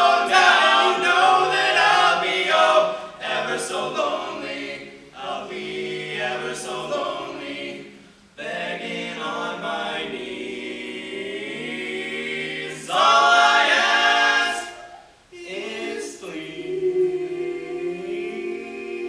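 Male barbershop quartet singing a cappella in four-part close harmony, holding long chords. Brief breaks between phrases come about eight and fifteen seconds in, with the loudest swell just before the second break.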